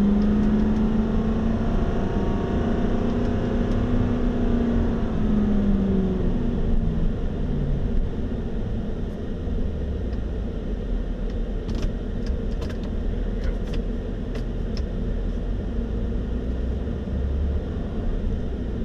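2017 Ford F-350 Super Duty's 6.7-litre Power Stroke turbo-diesel V8 under full throttle, heard from inside the cab, held at high revs in first gear because manual shift mode locked it there. The engine note holds steady with a slight rise for about six seconds, then falls away. After that only the low rumble of the truck rolling remains, with a few light clicks.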